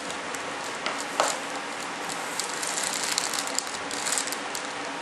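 Gloved hands pressing and working resin-wetted fiberglass on a plastic sheet: scattered light crackles and rustles over a steady background hiss, with one short falling squeak about a second in.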